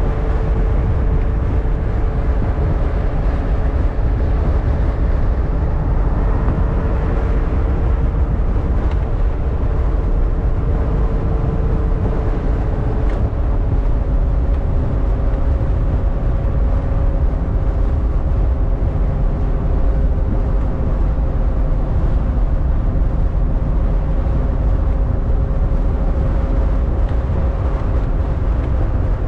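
Ferrari California's 4.3-litre V8 running at steady highway speed, a constant engine hum over low road rumble, its pitch edging up slightly about halfway through.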